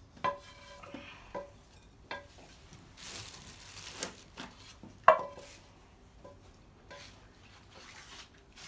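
Wooden spatula scraping and tapping a non-stick frying pan as scrambled egg is pushed out onto plates. There is a scatter of sharp taps, each with a brief ring from the pan, the loudest about five seconds in, and a stretch of scraping around three seconds in.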